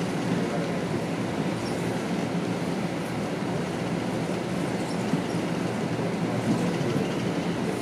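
Toronto subway train on the Yonge-University line, a TTC Toronto Rocket, running steadily on open track, heard from inside the car: a steady rumble of wheels on rail with a few faint clicks.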